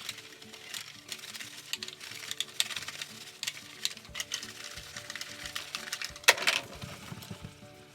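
Dishes and utensils clinking and knocking as they are handled in the kitchen, over soft background music, with a louder clatter about six and a half seconds in.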